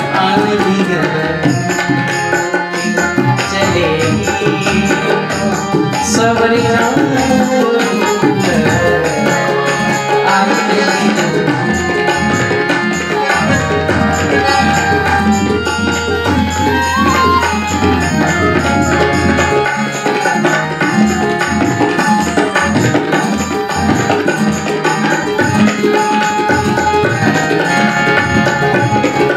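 Instrumental Indian light-music passage: a bansuri (bamboo flute) and a harmonium play together over a drum rhythm.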